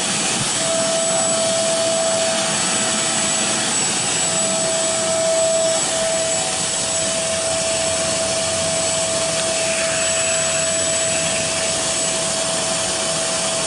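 Carpet shampooer's suction motor running steadily with a constant whine, its hand tool sucking water up from the carpet.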